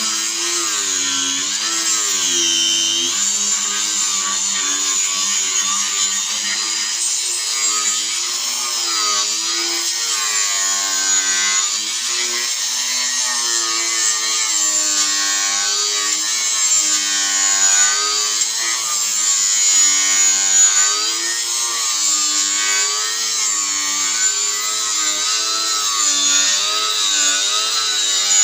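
Angle grinder running under load, grinding metal, its motor pitch wavering up and down continuously as the disc bites and eases off, over a steady high hiss.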